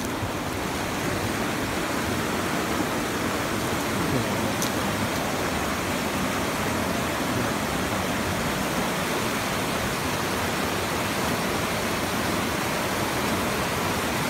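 Steady rush of a shallow river running over a rocky rapid, growing slightly louder about a second in.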